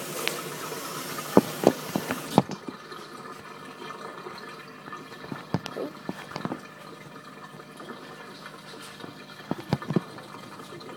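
Sausage patties frying in hot grease: a steady sizzle with sharp pops of grease, the sizzle cutting off suddenly about two and a half seconds in. After that, only scattered pops and clicks over a quieter background.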